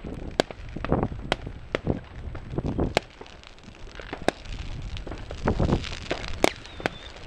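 Fireworks going off: irregular sharp bangs and cracks from firecrackers and rocket bursts, some near and some farther off, with a dull rumble about five and a half seconds in and a short high whistle near the end.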